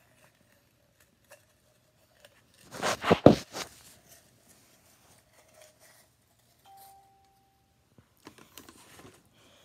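Paper notes crinkling and rustling as a hand digs one out of a gift jar, with one loud crinkly burst about three seconds in and fainter rustling of the paper slip near the end.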